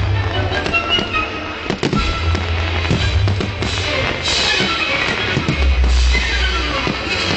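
Fireworks display: frequent bangs and crackling pops of fireworks over loud music with a heavy bass.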